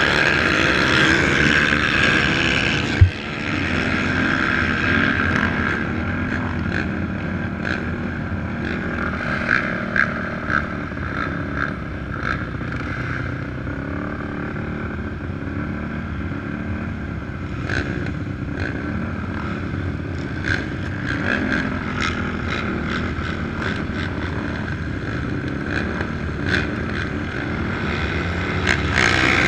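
Several quad (ATV) engines running at idle together in a steady mechanical drone. A single sharp click comes about three seconds in.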